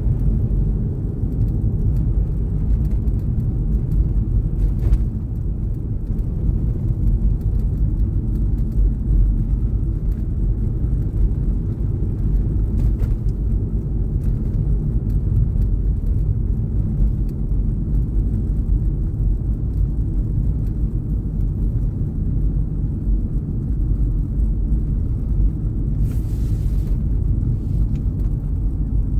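Car driving: a steady, low rumble of engine and road noise. A short hiss cuts in briefly near the end.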